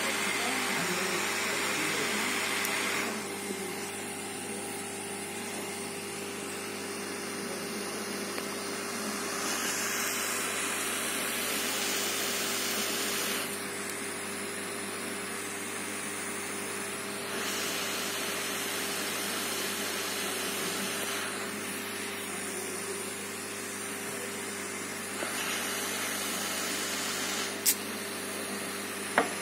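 Hot air rework gun blowing steadily on a laptop motherboard to melt solder while a replacement capacitor is fitted. Its hiss swells and eases every few seconds, with two sharp clicks near the end.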